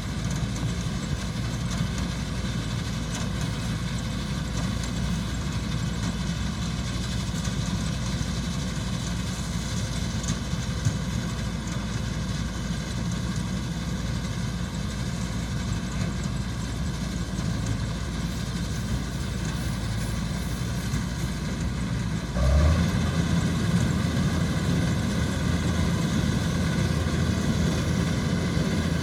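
Kubota DC-105X combine harvester's diesel engine running steadily while it works. About 22 seconds in it becomes suddenly louder and deeper and stays that way.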